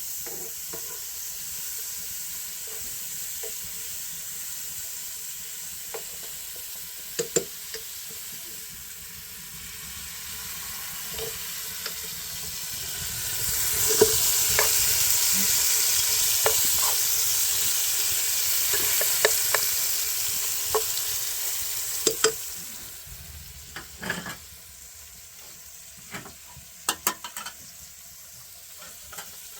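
Food sizzling in a frying pan, much louder for about nine seconds in the middle, with scattered clicks and knocks of a utensil against the pan.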